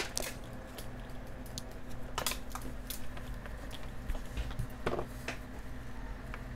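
Scattered light clicks and taps as power-supply leads are connected to a smartphone circuit board, over a steady low hum.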